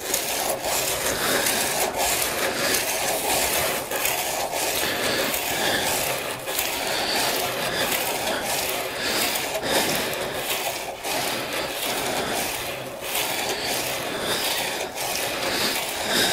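Steel wood-chisel blade rubbed back and forth on wet 400-grit sandpaper, a steady scraping with brief breaks between strokes, as the back of the new chisel is flattened.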